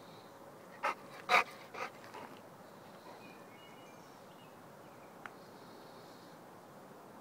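Dog giving three or four short yips in quick succession about a second in, the second one the loudest.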